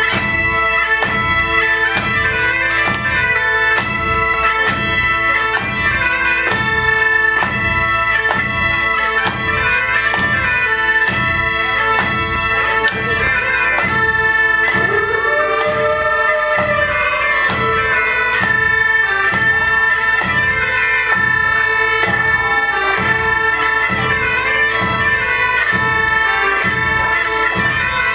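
Bagpipe playing a melody over its steady drone, with a second small pipe alongside and a steady drum beat.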